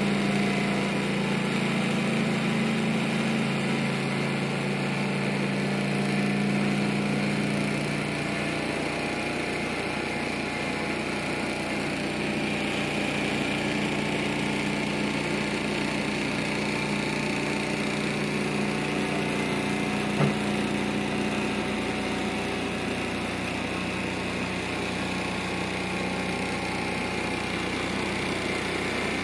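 Model alpha-type Stirling engine running steadily, heated by its alcohol burner. There is a single click about twenty seconds in.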